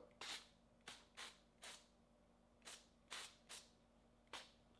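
A propellant-free avocado oil spray bottle pressed in short, faint spritzes, about eight quick hisses spaced unevenly.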